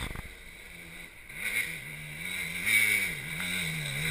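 Dirt bike engine revving up and down as it climbs a steep dirt trail, its pitch rising and falling with the throttle. It grows louder as the bike approaches.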